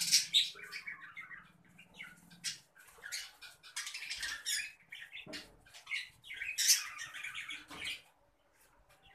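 Fischer's lovebirds chattering with shrill, scratchy squawks in short bouts, falling quiet near the end.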